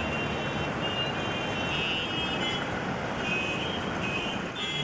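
Steady background noise, like distant traffic, with faint short high-pitched tones scattered through it.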